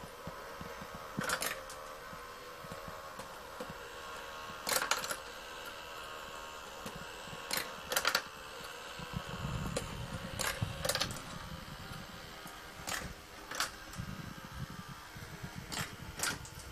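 Motorised marble run in operation: the lift motor keeps up a steady whirring hum, while steel ball bearings clack sharply against the track every second or two. There are stretches of low rumble as the balls roll along the rails.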